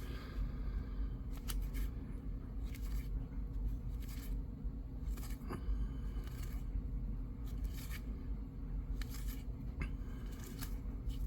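2025 Topps Update baseball cards being flipped through one at a time, a short papery slide about every second. Under them runs the low steady hum of a clothes dryer.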